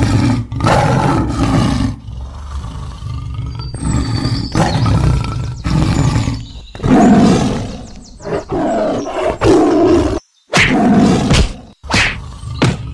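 A tiger roaring, several roars one after another with short breaks between them.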